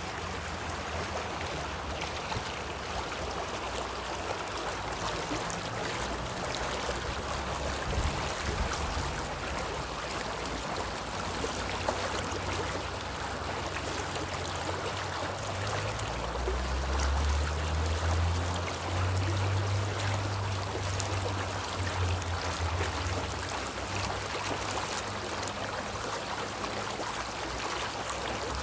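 Water of a stream or current flowing steadily, a continuous rushing noise; a deeper low rumble swells for several seconds past the middle.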